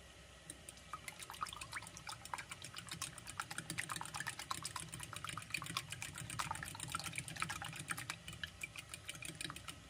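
Raw eggs beaten fast with a fork in a glass bowl: rapid clicking of the tines against the glass mixed with wet sloshing of the egg. It starts about half a second in and thins out just before the end.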